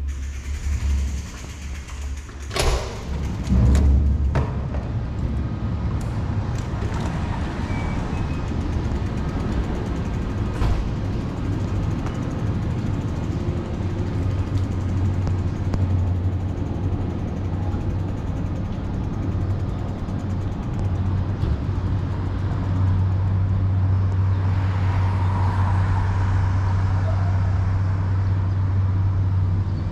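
A metal push-bar exit door clacks open and shuts with a heavy thud a second later, followed by a steady low rumble of wind on a helmet-mounted camera's microphone with street traffic noise, growing louder in the last few seconds.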